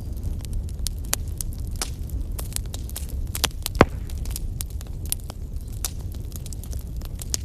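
Wood fire burning in a fireplace: a steady low rumble of the flames with irregular sharp crackles and pops, one loud pop about halfway through.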